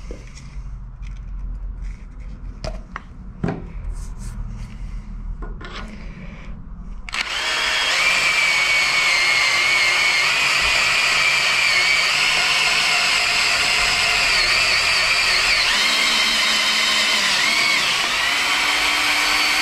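Cordless drill turning a reamer through a 9.5 mm hole in steel angle iron, opening it out to 10 mm. The drill starts about seven seconds in and runs steadily with a wavering whine. A few knocks come before it.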